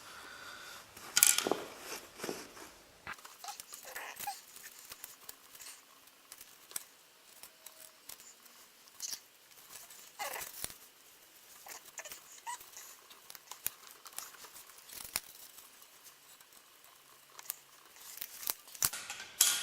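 Titanium exhaust heat wrap being handled and wound onto a smooth exhaust tube: scattered rustles, scrapes and light knocks, loudest about a second in and again near the end.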